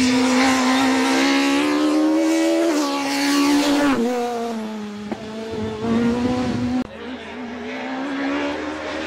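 Peugeot 306 Maxi rally car's engine at high revs, its pitch climbing steadily for about three seconds, dropping in steps as the driver lifts and changes gear, then holding lower. The sound breaks off abruptly about seven seconds in and then climbs again under acceleration.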